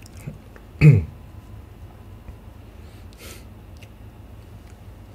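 A man's short wordless vocal sound about a second in, then a quick breath a little after three seconds, over a steady low hum of room tone.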